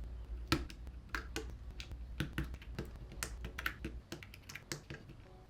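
Plastic keycaps being pressed onto the switch stems of a Higround Summit 2.0 mechanical keyboard: a string of irregular clicks and clacks, a few a second.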